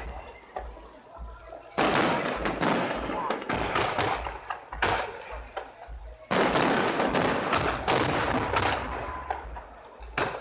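Aerial fireworks shells bursting in loud volleys of bangs and crackles, one starting about two seconds in and another about six seconds in, with spectator voices in the quieter gaps.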